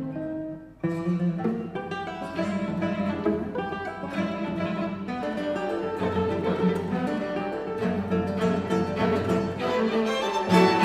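Classical guitar and string quartet playing chamber music. Held string notes break off briefly about a second in, then the nylon-string guitar plays quick plucked notes over the bowed strings.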